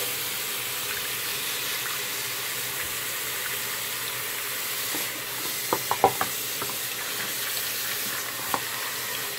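Tap water running steadily into a sink, with a short cluster of light knocks a little past halfway and another near the end.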